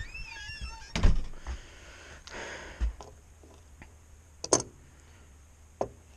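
A few scattered knocks and bumps, the loudest about a second in, with a short hiss midway.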